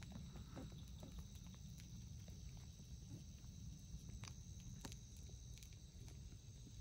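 Very faint night ambience: a steady high chirring of insects over a low rumble, with a few scattered faint clicks.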